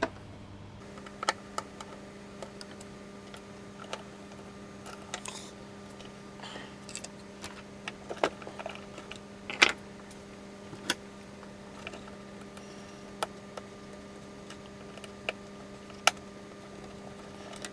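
Scattered small clicks and knocks of a Eurorack module being handled and taken out of the rack, the sharpest about halfway and near the end. A faint steady hum runs under them.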